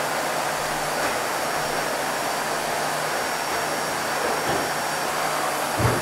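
Vacuum cleaner running steadily: a constant hiss of motor and rushing air over a low steady hum, with a short low bump near the end.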